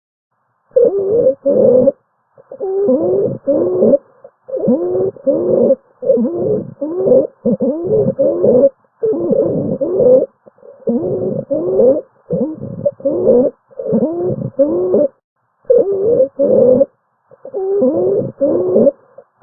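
Wheezing breath sounds from a lung-sound recording: a fast run of breaths, each carrying musical, several-pitched wheezes that slide downward in pitch, with short silent gaps between breaths.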